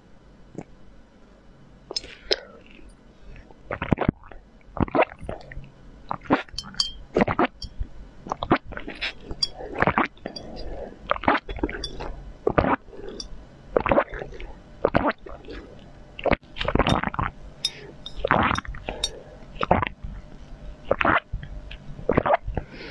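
Close-up crunching: crisp, sharp bites and chewing, one every half second to a second, sparse at first and busier from about four seconds in.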